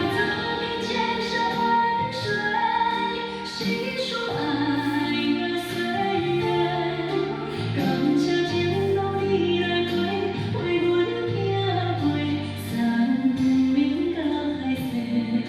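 A song with a woman singing over instrumental backing.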